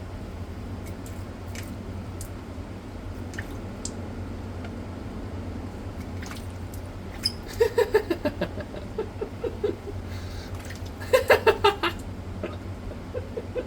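Water running steadily, with two bursts of a person's rapid, pulsing laughter, one about halfway through and a louder one near the end.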